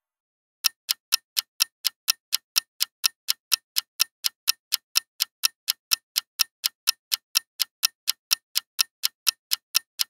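Clock-ticking sound effect for a quiz countdown timer, even sharp ticks at about four a second, starting a little under a second in.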